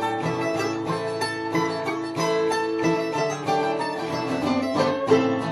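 Acoustic string music with fast-picked plucked strings, such as mandolin, banjo or guitar, playing a run of quick notes, with a few bent notes near the end.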